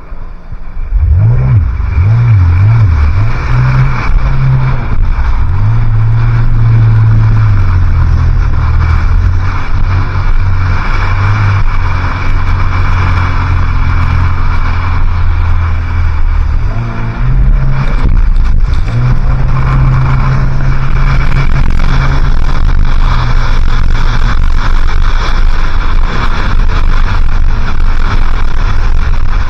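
Jet ski engine running hard at speed, with the rush of water and wind over it. The engine revs up in the first couple of seconds, eases and shifts pitch briefly a little past halfway, then pulls steadily again.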